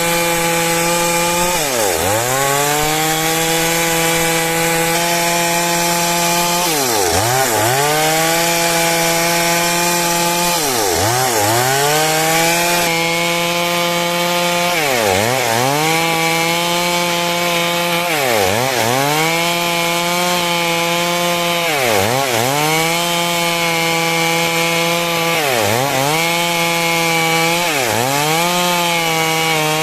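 Stihl MS 382 two-stroke chainsaw running at full throttle while cutting lengthwise through a log. Its engine speed dips sharply and recovers every few seconds.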